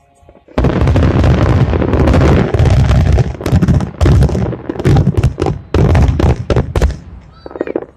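A dense barrage of aerial firework shells bursting, deep booms overlapping with sharp cracks. It starts suddenly about half a second in, breaks into separate loud cracks in the second half and eases off near the end.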